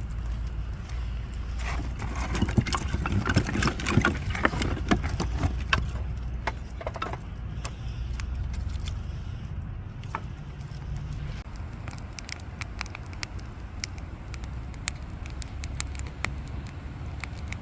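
Wood fire crackling and popping in sharp, irregular snaps over a steady low rumble. A busier stretch of louder crackles and clatter comes a couple of seconds in and lasts about five seconds.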